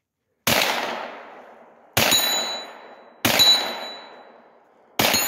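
Four single shots from a CZ Scorpion 9mm carbine, spaced about one and a half seconds apart, each trailing off in a long echo through the woods. The last three are each followed by a high metallic ring, a steel target being hit.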